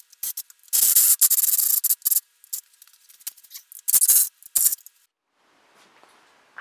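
A power driver backs temporary screws out of wooden shelf uprights with a harsh, rasping run of about a second and a half, then two shorter runs a couple of seconds later.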